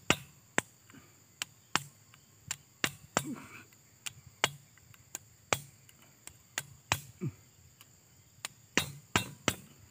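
Sharp metal clicks and taps at irregular intervals, about one every half second, as an L-shaped hex key is worked against a two-stroke chainsaw engine's cylinder bolts, which are rusty and hard to loosen.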